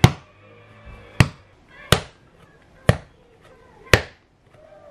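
Bread dough slammed down by hand onto a wooden cutting board while being kneaded: five hard thumps about a second apart.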